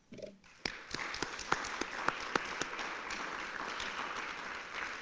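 Audience applauding with many separate hand claps, starting about half a second in and fading off near the end.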